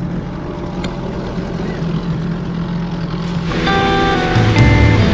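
Small outboard boat motor running steadily. About three and a half seconds in, background music comes in over it.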